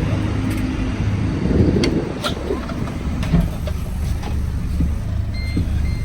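Interior of a Wright Gemini 2 hybrid double-decker bus, its drivetrain running with a steady low hum. A few knocks and rattles come around two seconds in, and two short beeps near the end.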